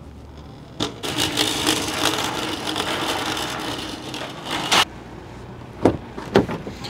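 Metal shopping cart rattling and clattering as it is pushed over pavement for about four seconds, stopping with a sharp clack. Two sharp knocks follow near the end.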